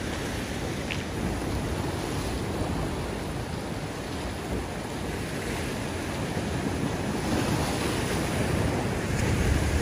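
Ocean swell surging and washing against a rock ledge, a steady rush of surf with wind on the microphone, growing a little louder near the end.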